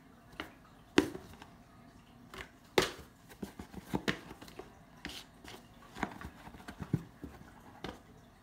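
A kitten batting at and bumping a cardboard shoebox: a string of irregular taps and knocks on the cardboard, a few of them sharper and louder.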